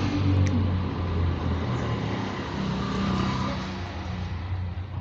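A steady low mechanical hum, engine-like, with a wavering higher band above it.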